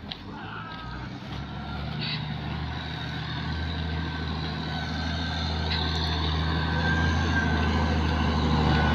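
Wheel loader's diesel engine running under load, a steady low hum that grows gradually louder as the machine drives closer.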